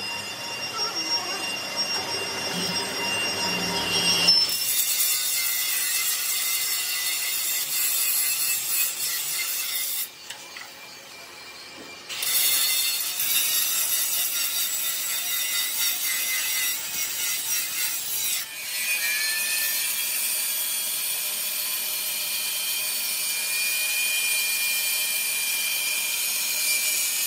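Steady metalworking machine noise, a scraping, hissing sound strongest in the high range, in several abrupt cuts. There is a quieter stretch about ten to twelve seconds in.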